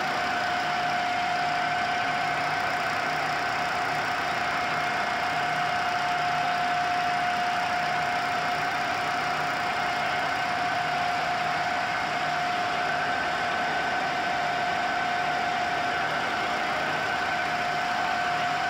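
Flexographic label printing press running at speed: a steady mechanical drone with a constant whine over it.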